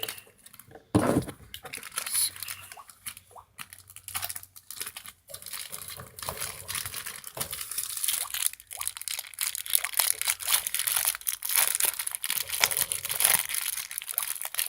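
Plastic bag crinkling and crackling as it is handled and worked open, turning into a dense run of crackles about halfway through, with a single thump about a second in.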